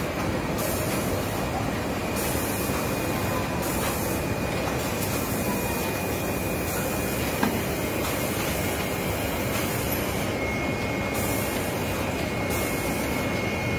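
Steady machinery din of a running porcelain bowl production line, an even rushing noise with a faint high whine over it. A single short click comes about halfway through.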